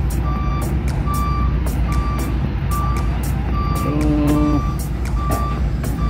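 Transit mixer truck's reversing alarm beeping as it backs up, short single-pitch beeps a little under one a second, over a steady low engine rumble.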